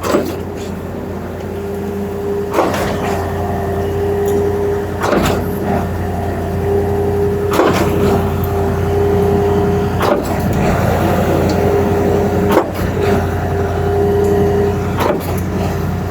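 Concrete pump truck running steadily under load, its engine holding a constant drone, with a sharp clunk about every two and a half seconds as the pumping cylinders change stroke.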